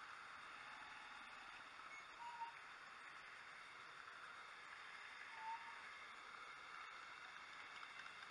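Near silence: a faint steady hiss, with two brief faint tones about two and five and a half seconds in.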